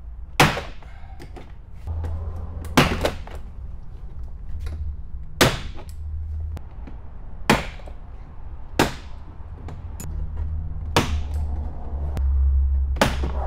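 Plastic retaining clips of a 2019 Ram Rebel's rear door trim panel popping loose as the panel is pried off: about eight sharp snaps, roughly one every one to two seconds, with low rumbling from the panel being handled between them.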